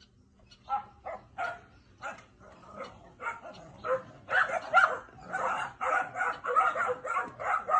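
A litter of 13-week-old Labrador retriever puppies barking: single barks at first, then louder, rapid, overlapping barking from about four seconds in. The pups are squaring off over a spot in a dominance game, and the barking is getting aggressive.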